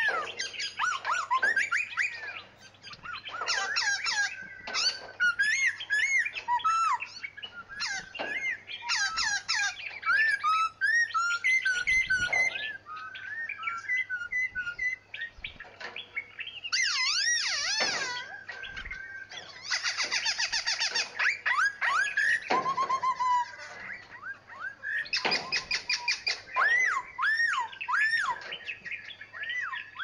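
Several caged songbirds chirping and singing at once: overlapping whistled phrases and chirps, broken by bursts of rapid repeated notes several times.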